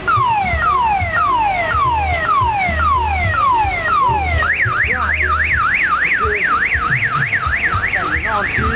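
Electronic car-alarm-style siren cycling through its tones. It gives a falling whoop about twice a second, switches about halfway through to a fast up-and-down warble, and returns to falling whoops near the end.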